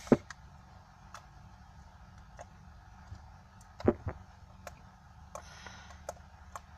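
Finished homemade slime being squeezed and played with by hand, giving scattered small clicks and pops, with a louder snap near the start and two more about four seconds in.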